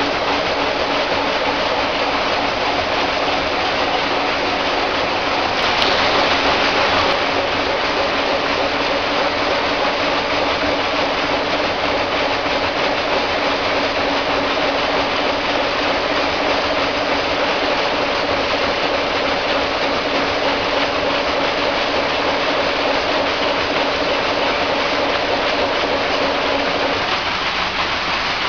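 Machinery running steadily, a constant mechanical hiss with a steady two-note hum. A brief louder hiss about six seconds in, and the higher hum note drops out shortly before the end.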